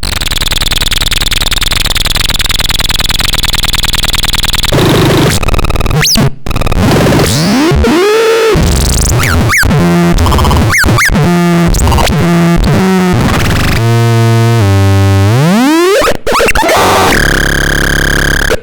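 Electronic synthesizer No. 10030 making test sounds. For the first few seconds it gives a harsh buzzing noise with a high whine. Then come swooping pitch glides, short bleeps and stepped notes, broken by two brief cut-outs, with a long rising sweep about three-quarters of the way in and a steady buzzy tone near the end.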